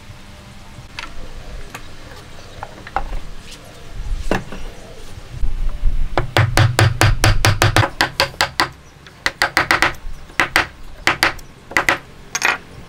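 A chisel driven by repeated blows into the end grain of a wooden post, chopping out a joint by hand. A few light knocks at first, then from about halfway a fast even run of about five strikes a second, then slower single strikes near the end.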